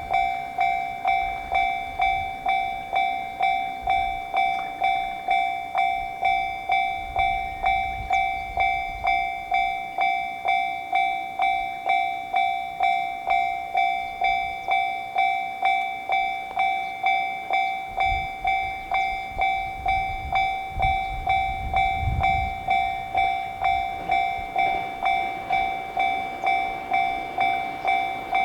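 Japanese electronic level-crossing bell (the 'kan-kan' alarm) ringing steadily, about two strokes a second. A low rumble swells beneath it about two-thirds of the way through.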